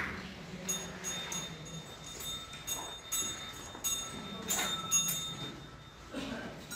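Small metal bells, of the kind hung on the bulls, jingling in irregular shakes. Each shake starts sharply and then rings on.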